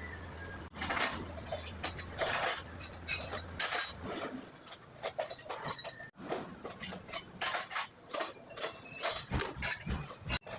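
Irregular clinks and clanks of metal tools and engine parts being handled, over a low steady hum that stops about a third of the way in.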